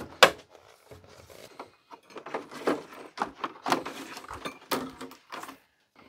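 Plastic casing parts and filters of a split-system air conditioner's indoor unit being handled and pulled apart: irregular clicks, knocks and small rattles of plastic, busiest in the second half.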